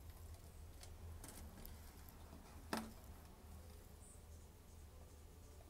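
Near silence: a faint steady low hum of background noise, broken by a few soft clicks, the clearest nearly three seconds in.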